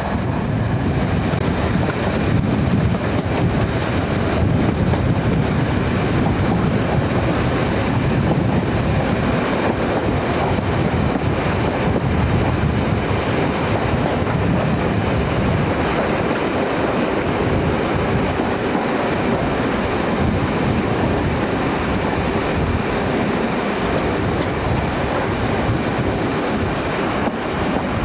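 Passenger train running on the track, heard from an open carriage window: a steady rush of wheel and rail noise with wind on the microphone. The low rumble eases somewhat in the second half.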